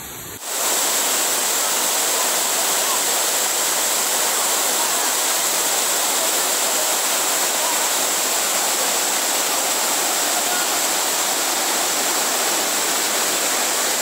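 Steady, even rush of falling water from a tall waterfall, starting abruptly about half a second in.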